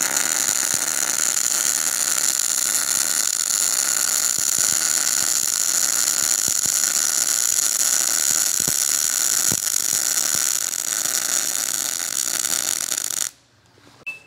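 MIG welding arc with 0.035 in ER70S-6 mild steel wire under 75/25 argon-CO2 at about 150 A, running a bead on steel box tube: a steady sizzling hiss with a few scattered pops. It stops abruptly near the end as the arc is broken.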